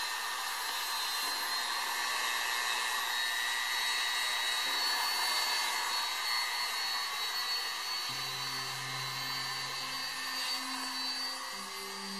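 Handheld rotary tool spinning a small sanding drum at high speed, a steady high-pitched whine with a grinding hiss, as it sands burnt enamel off the ends of enamelled copper wire. About eight seconds in, soft held music notes come in underneath.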